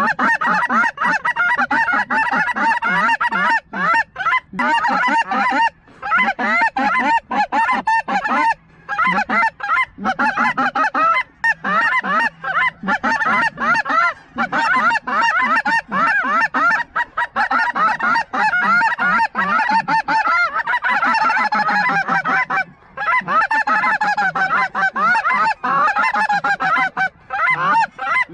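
A large flock of geese calling, with many short honking calls overlapping into a continuous clamor and brief breaks now and then.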